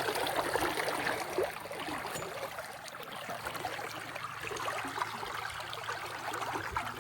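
Shallow, clear stream water running and trickling in a steady wash.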